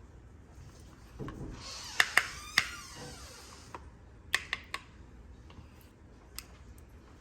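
Handling noises: a rustle lasting about two and a half seconds with three sharp clicks in it, then a quick run of three more clicks and a single click near the end.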